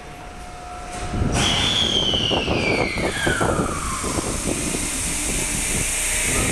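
Electric subway train running through the underground station. About a second in its noise swells, and a high motor whine falls steadily in pitch over a few seconds as it slows, over wheel and rail rumble and hiss.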